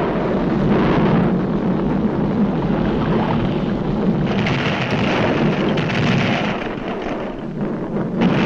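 Volcanic eruption sound effect from a 1940s animated cartoon: a continuous deep rumbling roar, with a brighter hiss coming in about four seconds in and easing off a couple of seconds later.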